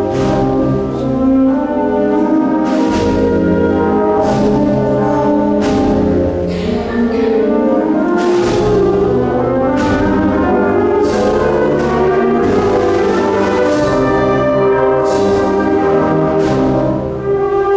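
Symphonic wind band playing a slow Andalusian Holy Week procession march, with brass carrying sustained chords. Sharp percussion strikes sound at intervals throughout.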